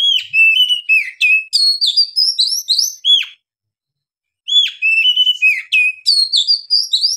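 Male oriental magpie-robin singing two long phrases of clear, sliding whistled notes, rising and falling, with quick higher twitters mixed in and a pause of about a second between the phrases.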